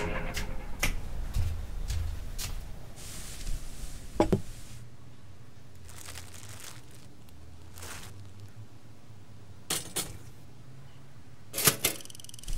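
Scattered small clicks and knocks of kitchen objects being handled, with a few louder ones. Near the end comes a quick pair of clicks as the toaster's lever is pressed down.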